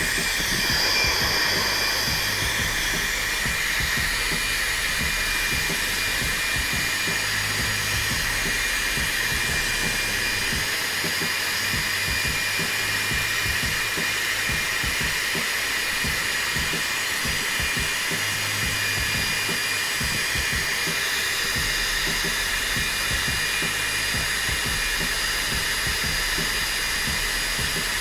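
Older tourmaline ionic hair dryer running steadily on its lowest setting: an even rush of air with a steady high whine from the motor.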